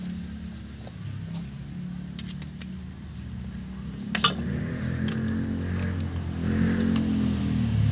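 A few sharp metallic clinks of tools and small parts being handled, over a motor vehicle engine running that grows louder in the second half.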